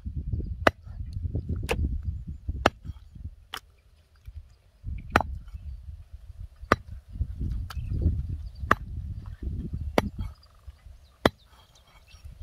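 A knife chopping fish on a cutting board: about ten sharp strokes, roughly one a second, with a brief pause midway and a low rumble between the strokes.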